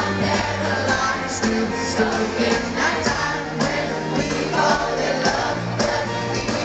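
Live pop band playing a song with a singer over it, loud and continuous.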